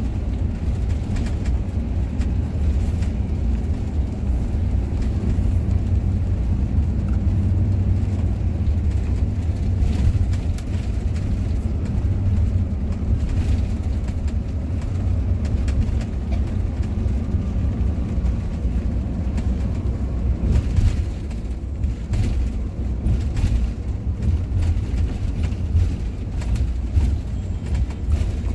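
Intercity bus cruising on a highway, heard from inside the cabin: a steady low rumble of engine and road noise, with a few light knocks in the second half.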